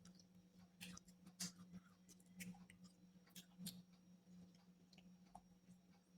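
Close-miked chewing of food: soft, irregular mouth clicks and smacks, a few louder ones around the middle, over a faint steady hum.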